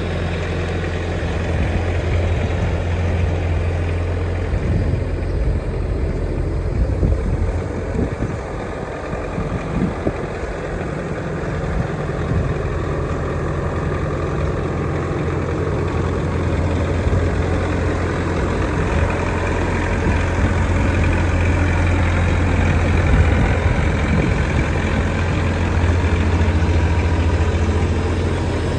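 Bobcat T650 skid steer's diesel engine running steadily at idle, a low even hum.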